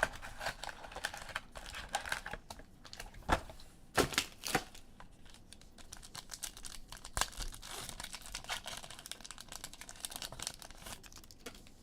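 Foil trading-card pack wrapper crinkling and being torn open, a run of crackles with a few sharper rips about three to four and a half seconds in.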